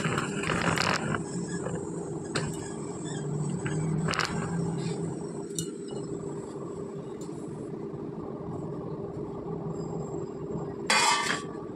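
Scattered light clinks and knocks of kitchen utensils over a steady low hum, with a brief louder rustle near the end.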